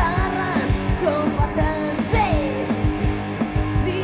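Rock band demo recording playing: electric guitars over a steady drum beat, with a sliding melody line on top.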